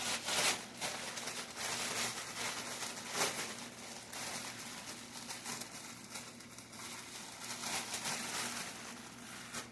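A cloth towel rustling and rubbing against a plate as it is wiped free of grease, with scattered small scrapes and clicks, over a faint steady hum.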